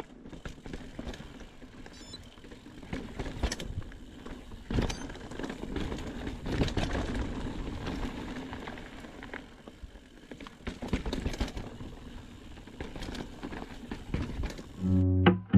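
Mountain bike ridden over a rocky dirt trail: tyres crunching on gravel and stone, with frequent knocks and rattles of the bike as it drops over rocks. About 15 s in, guitar music starts.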